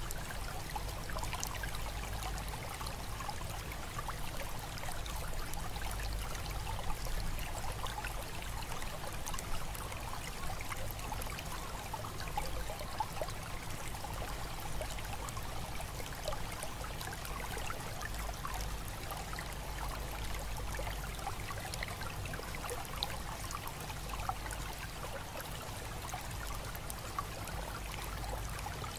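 Hot-spring water pouring and trickling steadily into an open-air rock bath, a continuous splashing with many small drips and splashes.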